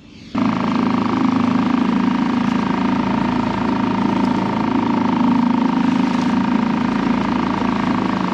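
Small outboard motor on a fishing kayak running steadily at a constant speed. It comes on abruptly just after the start.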